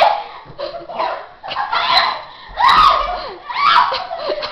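Girls laughing and squealing in short high-pitched bursts with brief pauses between them.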